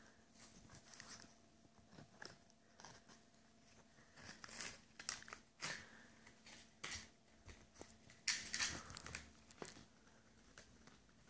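Miniature pinscher chewing and gnawing close to the microphone: irregular crunching and rustling, with louder spells about a third of the way in and again past two-thirds.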